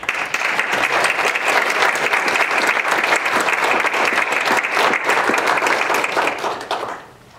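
A roomful of people applauding: dense clapping that fades out near the end.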